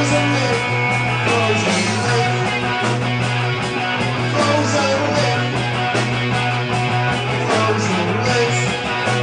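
Rock band playing live: guitars over a steady bass line and drums.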